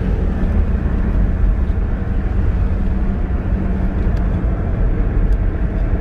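Car driving along a smooth road: a steady rumble of road and engine noise with a faint low hum.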